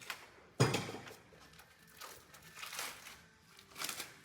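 A new front brake pad being fitted into the caliper: one sharp metal knock about half a second in, then light scraping and rustling as the pad and parts are handled.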